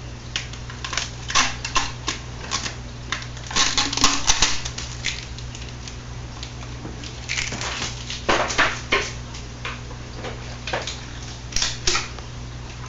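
Irregular clicks and crackles of hard plastic being handled, from a car's turn signal lens assembly, over a steady low hum.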